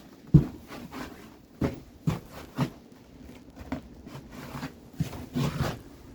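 A few light, irregular knocks and clicks, about eight in all, the sharpest about half a second in, of tools or parts being handled.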